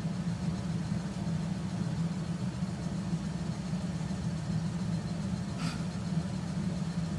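Immersion hand blender motor running steadily while blending oil and milk into an eggless mayonnaise emulsion. A brief hiss comes about five and a half seconds in.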